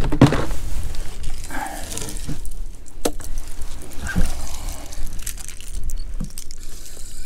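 Water sloshing and splashing close by, over a steady low rumble, with a sharp click about three seconds in.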